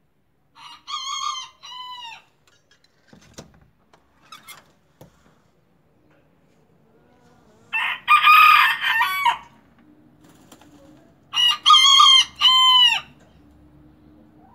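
Young bantam (miniature) rooster crowing three times a few seconds apart, the first quieter and the last two loud; its crow still has the thin sound of a young cockerel that has only just begun to crow.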